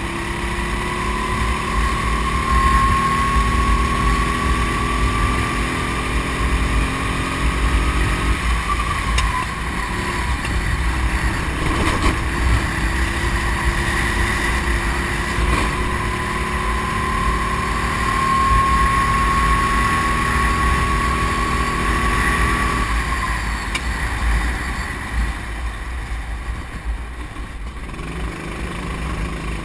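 Kart engine heard on board, its pitch climbing steadily along two straights, the first about eight seconds and the second about twelve, and dropping each time the throttle is lifted. In the last few seconds it runs lower and quieter as the kart slows.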